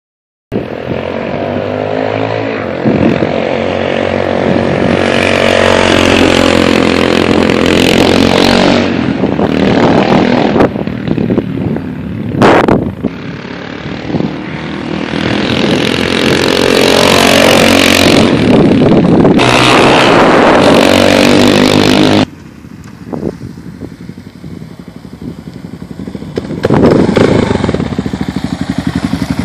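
Kawasaki dual-sport motorcycle engine revving up and down as the bike rides around, its pitch rising and falling through the gears. It drops away suddenly about two-thirds through, then comes back loud and settles into a pulsing idle near the end.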